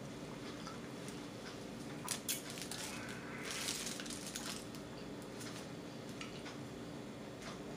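Quiet eating noises over a faint steady hum: a couple of sharp clicks about two seconds in, then a short crackle a second later, from people eating burritos.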